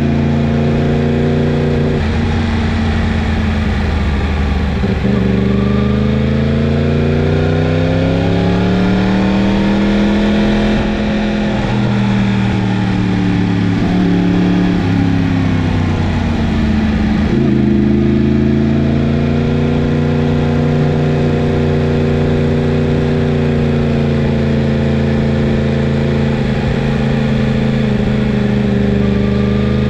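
Yamaha MT-10's crossplane inline-four engine running under way. The pitch climbs slowly for about five seconds, falls back, steps down suddenly, then holds steady with a slight rise near the end.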